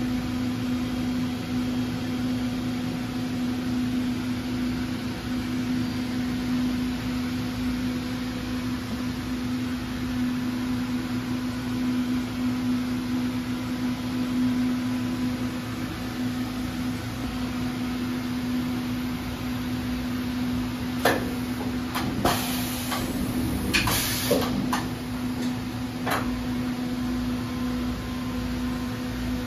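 Sharp SV-4328SX CNC vertical machining center switched on and running with a steady hum. About three-quarters of the way through come a few sharp knocks and short clattering bursts.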